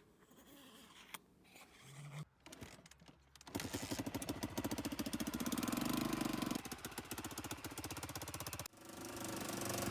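1993 Honda XLR250R's single-cylinder four-stroke engine starting about a third of the way in and running with a fast, even firing beat. The sound drops out for a moment near the end and picks up again at once.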